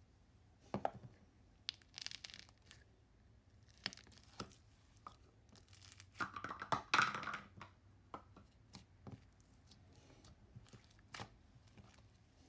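Slime being pressed and stretched by hand, giving sticky crackles and pops, with a denser run of crackling about six seconds in.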